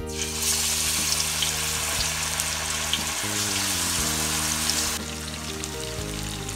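Masala-coated fish pieces deep-frying in hot oil, a dense sizzle that starts suddenly as they go into the pan and eases a little about five seconds in. Background music plays underneath.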